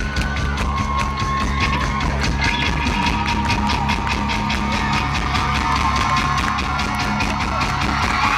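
Live rock band playing: a drum kit keeping a steady beat under electric guitars and bass guitar.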